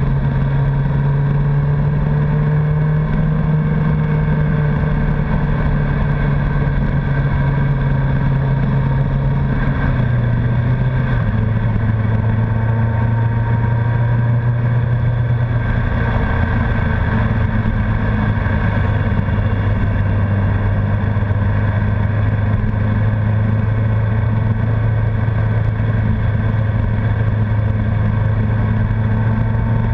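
Honda CBR1100XX Blackbird's inline-four engine running steadily at cruising speed as the bike is ridden. About ten seconds in the engine note drops to a lower pitch and holds there.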